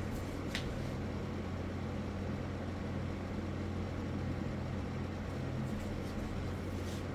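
A steady low electrical or mechanical hum over a constant hiss, with a brief faint squeak about half a second in and a few faint ticks near the end.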